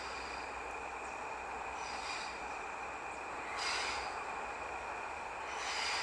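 Diesel railcar running along the track, a steady rolling noise with a constant high whine, and brief high squeals from the wheels twice, the second near the end.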